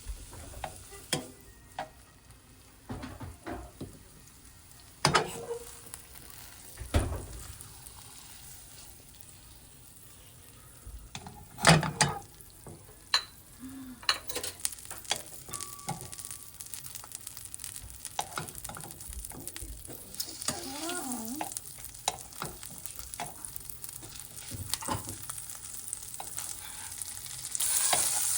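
Kitchen clatter of utensils and cookware knocking, then a frying pan sizzling, growing steadily louder and jumping up sharply near the end as pollock roe (myeongran) goes into the pan.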